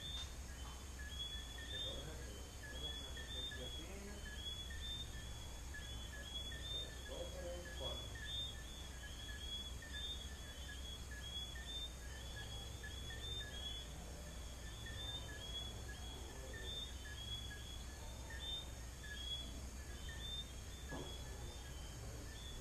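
Night chorus of small frogs (sapitos) giving short, high, rising whistled chirps, many overlapping at a few a second, over a steady high trill of crickets and a constant low hum.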